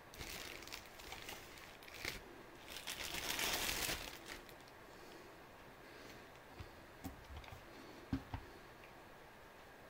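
Clear plastic bag wrapped around a desk lamp crinkling as it is handled, loudest about three to four seconds in. A few light knocks follow later.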